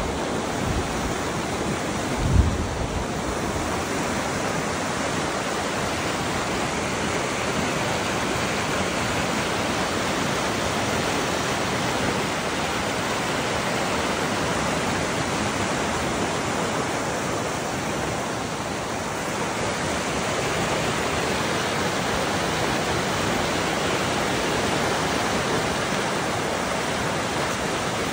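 Floodwater of a small stream swollen 7 to 9 feet deep by a sudden heavy rain, rushing past trees in a steady, dense rush of water. A brief low thump about two seconds in.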